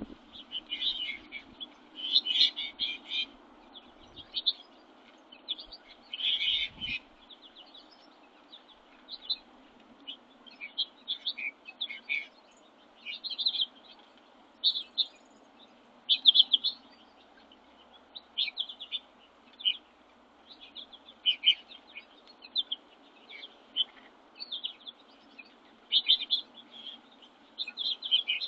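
Small songbirds chirping and twittering, a steady stream of short high calls with no pause.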